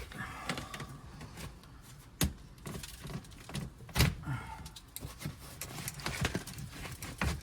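Knocks, clatter and rattling of hand work on a caravan's roof rail and panels, with three sharp knocks about two seconds in, about four seconds in and near the end.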